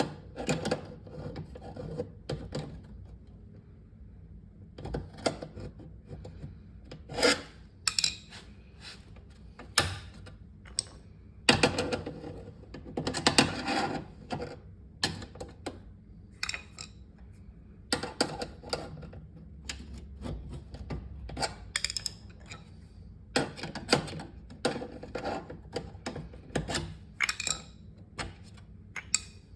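Flat-head screwdriver prying and scraping at the small retaining tab of a refrigerator roller wheel assembly, bending it flat to free the wheel's pin. It makes irregular clicks, scrapes and knocks, some in quick clusters.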